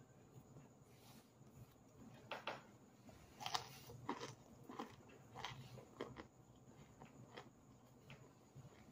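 Biting and chewing hard, crunchy chunks of cornstarch packed and hardened in a water bottle, close to the mic. A run of sharp crunches starts about two seconds in, roughly one or two a second, and dies down near the end.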